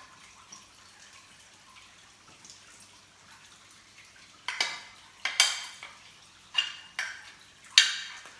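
A kitchen utensil knocking against cookware: five sharp, ringing clinks in the second half, after a quiet first few seconds.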